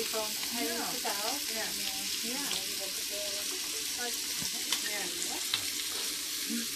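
Sausages and chicken skewers sizzling in fat on an electric griddle plate, a steady frying hiss, with a couple of sharp clicks in the second half.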